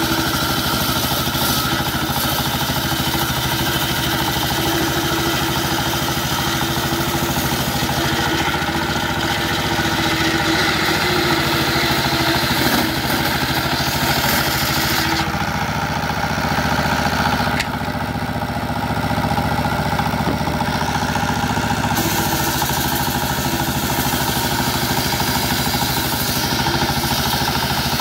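Single-cylinder stationary diesel engine running steadily, driving a table circular saw whose blade rips through a sonokeling (Indian rosewood) plank. The saw's high hiss thins out for a few seconds mid-way, then returns.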